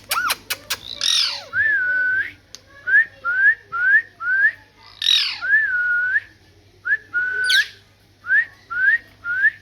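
Pet parrot calling: a run of short rising whistle notes and a few longer held whistles, broken three times by harsh squawks that sweep up and down, with a few quick clicks at the start.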